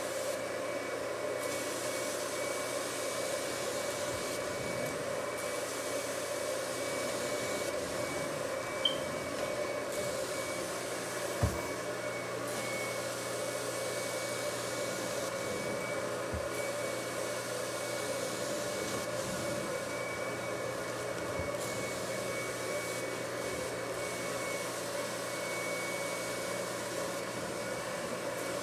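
Carpet extraction wand and its machine's vacuum running steadily as the wand is drawn over the carpet, a constant suction drone with a thin high whistle. Two brief knocks come about a third of the way in.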